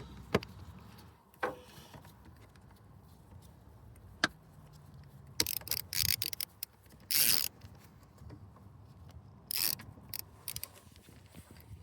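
Intermittent clicks, knocks and short scraping rustles of hands, tools and metal parts being handled while working on a car engine.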